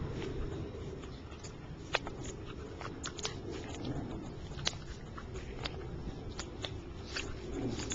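A Cockapoo and a Soft Coated Wheaten Terrier play-fighting: low rumbling growls under a string of irregular sharp snaps and clicks as they mouth and bite at each other.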